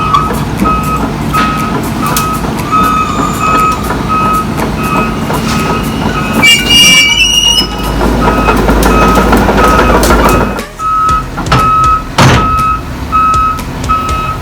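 Heavy excavator's travel alarm beeping over and over above its running diesel engine as the machine moves off a trailer, with a brief high squeal about halfway through and a few sharp metallic knocks near the end.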